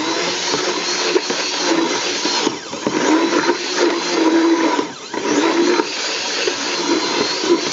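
Stick blender running in a stainless steel pot of soap batter, mixing the white topping base. Its motor sound dips briefly twice, about two and a half and five seconds in.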